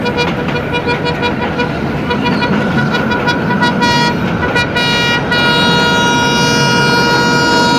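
Train running on the track with a steady rumble, heard from the open window of a moving carriage. About four seconds in a train horn sounds, breaks off briefly twice, then holds one long, steady multi-tone note.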